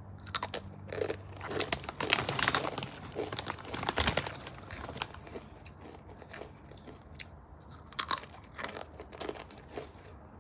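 Crunchy rolled tortilla chips (Takis) being bitten and chewed close to the microphone: irregular sharp crunches, densest in the first half, with another loud bite about eight seconds in.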